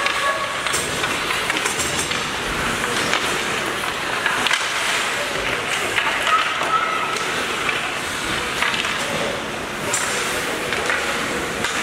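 Ice hockey game in a rink: a steady wash of skates scraping the ice, with scattered sharp clacks of sticks and puck and faint shouting voices.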